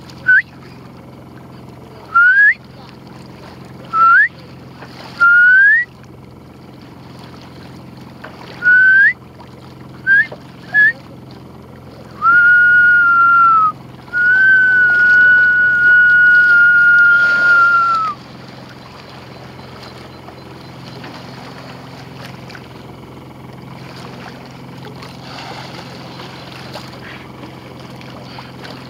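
A person whistling: a series of short rising whistles, then two long held notes at one steady pitch, the second about four seconds long. Under it runs a steady low hum of boat and sea noise.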